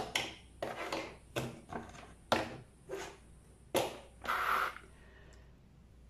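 Fine #26 jewellery wire being pulled through a bead and worked around a metal hoop earring: a string of short scratchy rasps and clicks, about eight in five seconds, ending with a longer rasp. Then the sounds stop.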